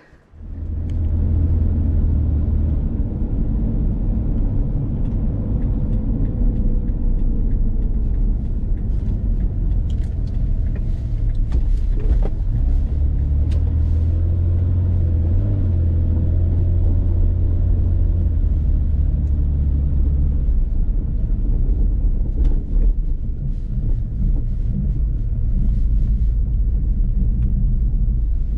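Car driving slowly, heard from inside the cabin: a steady low rumble of engine and road noise, with a few faint clicks.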